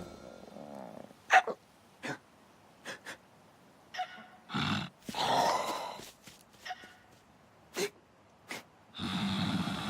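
Cartoon ostrich hiccuping: short, sharp hics at irregular intervals, with lighter clicks between them. A longer, steady noisy sound starts near the end.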